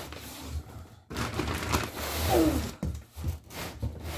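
Plastic wrapping on a rolled, compressed mattress crinkling and rustling as it is pushed and rolled by hand, with a short falling voice-like sound about two seconds in.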